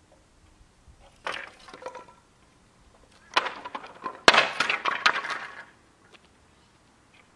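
BMX bike clattering in two bursts of rattling metal knocks, the second louder, with a sharp crack about four seconds in.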